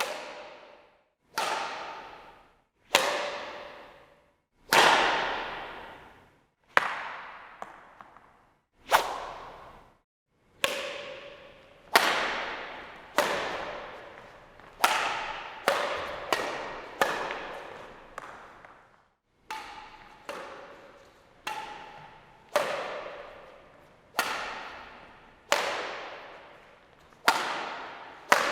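Badminton racket striking a shuttlecock over and over: about twenty sharp hits, one every second or two with some in quick pairs. Each hit has a ringing tail that fades over a second or two.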